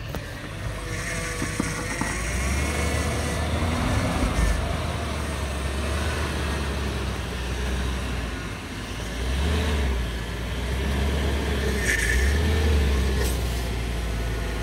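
Range Rover L322 SUV's engine working at low speed as it crawls uphill over a rocky trail, the revs rising and falling, with brief swells of effort twice in the second half.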